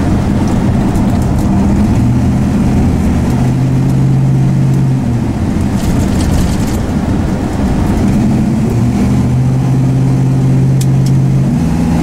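1966 Dodge Dart GT's engine running while driving, heard from inside the cabin over road noise. The engine note rises about two seconds in, drops back around five seconds, climbs again from about eight seconds and steps up once more near the end.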